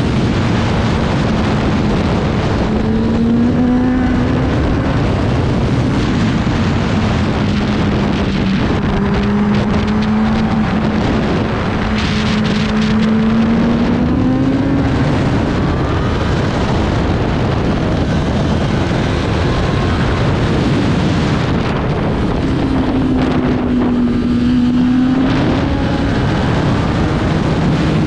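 Racing motorcycle engine at speed, its note climbing and dropping repeatedly as it accelerates and slows, under heavy steady wind rush.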